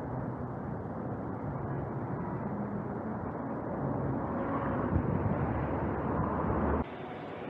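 Steady low rumble of city street noise. It grows louder about four seconds in, then cuts off abruptly near the end, leaving a quieter background.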